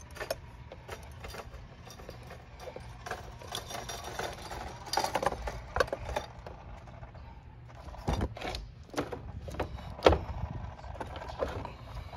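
Irregular metallic clinks, clicks and knocks of a hand tool and car battery hardware being handled, as the battery is slid forward and its negative terminal worked loose. One sharper knock comes near the end.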